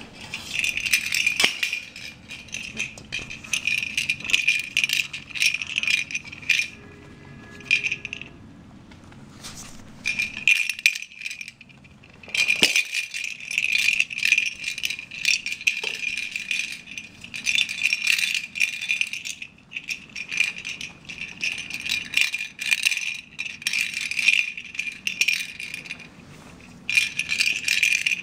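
A hollow plastic lattice toy ball with a jingle bell inside, rattling and jingling as a rabbit nudges and rolls it along the floor. It comes in long bursts with short pauses between them.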